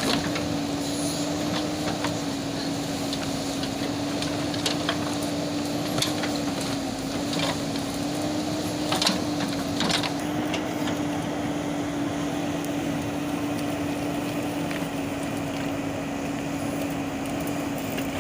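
Backhoe loader's diesel engine running at a steady pitch, with occasional sharp knocks and clatters from the machine working.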